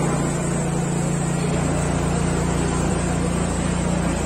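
A motor running steadily, a low even drone whose deepest rumble thickens about a second and a half in.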